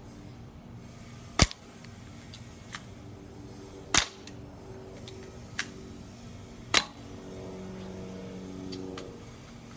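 Airsoft pistol firing BBs: three loud, sharp single shots about 1.5 s, 4 s and 7 s in, with fainter clicks in between.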